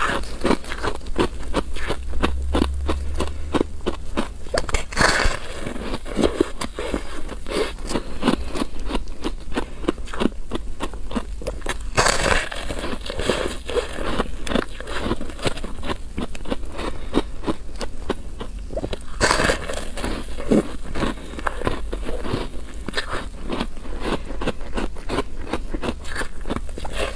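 Powdery ice being bitten and chewed close to the microphone: dense, rapid crackling crunches throughout, with a few louder bites standing out.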